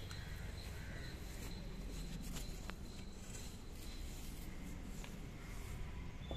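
Faint steady low background rumble with a few light clicks.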